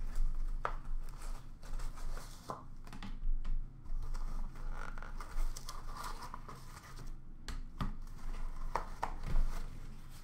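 Hands opening a sealed hockey card box: plastic wrapping tearing and crinkling, with scattered clicks and taps as the box and cased cards are handled, over a steady low hum.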